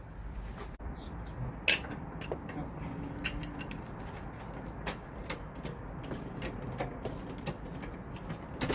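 Scattered sharp clicks and knocks of metal tools and parts being handled, at irregular intervals.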